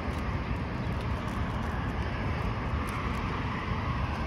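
Steady road traffic noise from passing cars and buses.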